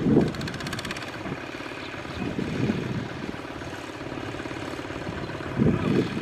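Kubota ZT120 walking tractor's single-cylinder diesel engine chugging steadily under the load of a trailer of rice sacks, swelling louder briefly near the start and again near the end.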